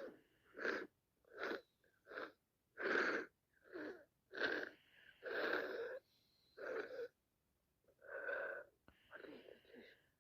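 Short, wheezy, congested breaths and sniffs from a person with a heavy head cold, about a dozen in ten seconds with a brief pause near the middle. Some carry a thin whistling tone from the blocked nose.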